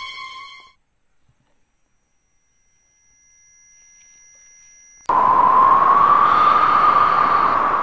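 Horror-film sound effects: a thin high-pitched ringing tone swells louder for a few seconds, then breaks off into a sudden loud, harsh blast with one wavering tone through it. The blast is the jump-scare sting for a hooded figure appearing.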